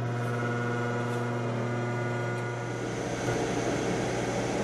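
Ninja Foodi multicooker running on Air Crisp: its fan and heater give a steady hum with a whine above it. About halfway through, the whine drops away and the sound turns to a rougher, noisier whir.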